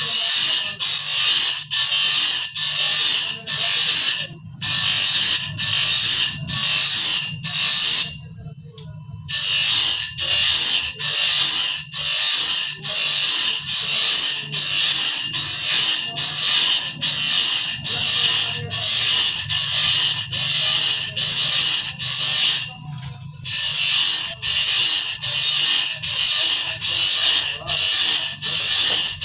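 Bandsaw blade being sharpened tooth by tooth: a steady rhythm of about two sharpening strokes a second over a low motor hum. The strokes pause briefly a few times.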